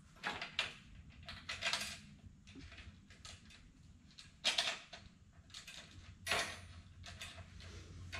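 Irregular clicks, clatters and rustles of metal studs and clips being handled and fitted on a plastic mesh truck grille, with louder clatters about half a second, a second and a half, four and a half and six seconds in. A faint steady low hum sits underneath.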